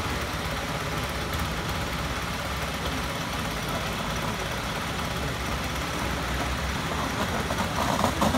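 Engine of the construction machinery working a vacuum lifter, running steadily at a low idle. Near the end, louder choppy sounds begin.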